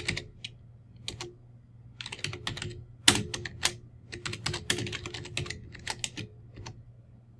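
Typing on a computer keyboard: quick runs of keystrokes with short pauses between them, as commands are typed into a command prompt.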